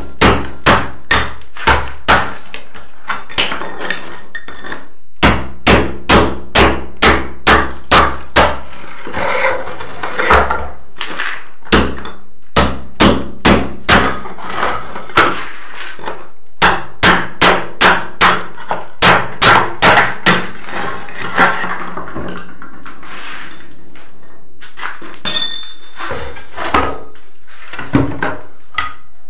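Hammer striking a steel chisel to chip old ceramic floor tiles off a concrete floor, in runs of sharp blows about two or three a second, with short pauses between runs and fewer blows near the end.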